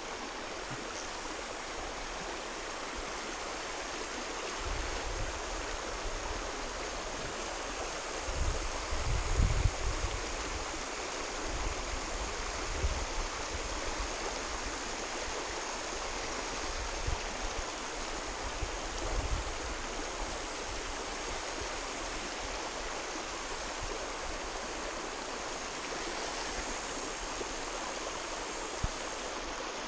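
Steady rush of a shallow river running over rocks, with a few low rumbles about a third of the way in.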